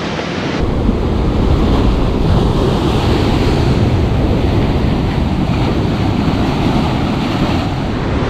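Ocean surf breaking and washing over the rocks, a loud steady rush, with wind buffeting the microphone.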